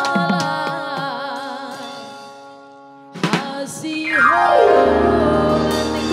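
Live band music from an electronic keyboard and tuned drums. A wavering melody line fades away, then a few sharp drum strokes about three seconds in, a quick falling glide, and a full sustained chord with deep bass.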